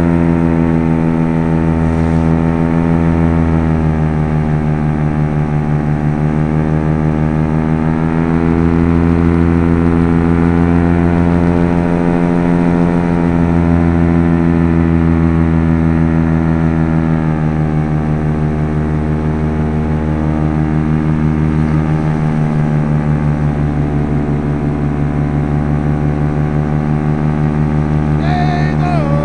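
PAP paramotor's Top 80 two-stroke engine and propeller running steadily in flight, heard close up from the pilot's harness, the pitch shifting slightly a few times with the throttle.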